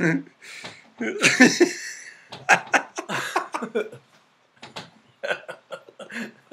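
A man's voice making a string of short, wordless vocal noises, broken by brief silent gaps.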